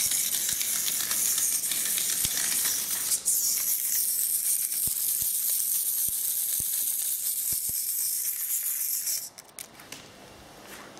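Hexbug Larva robotic toy's small motor whirring with a high, hissing buzz and scattered light clicks, which cuts off about nine seconds in.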